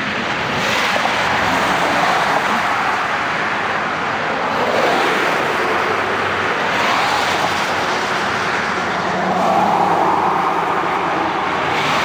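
Highway traffic going past: a steady rush of tyre and engine noise that swells and fades several times as cars pass one after another.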